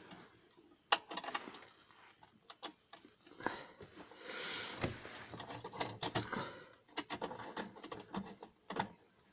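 Scattered small metallic clicks and taps from small bolts and tools being handled while a plate is fitted to a washing machine drum, with a brief rustle about four and a half seconds in.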